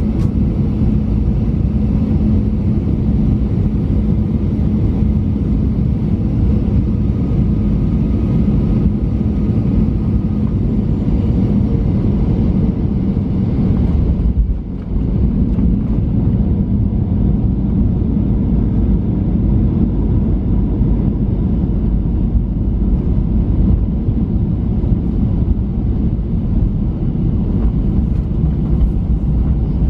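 Steady low rumble of a Boeing 737-900 heard from inside the cabin: engine and airflow noise. It dips briefly about halfway through.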